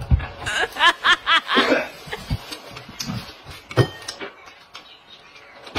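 A person's short run of quick, high-pitched vocal notes in the first two seconds, each rising in pitch, like a giggle. After that come a few light clicks of chopsticks against a bowl, with a sharper click near the end.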